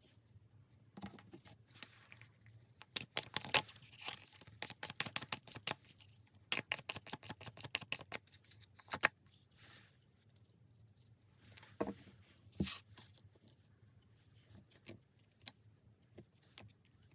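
Tarot cards being shuffled and handled: a dense run of quick papery flicks and slaps for several seconds, then a few separate card taps.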